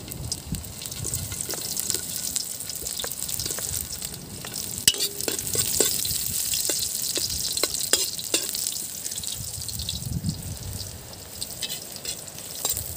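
Chopped garlic sizzling in hot oil in a metal wok, with a metal ladle scraping and clicking against the wok as it is stirred.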